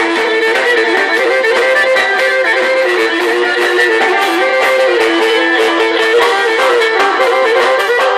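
Live Pontic lyra (kemenche) playing a fast melody of quickly changing notes, with drums beating underneath.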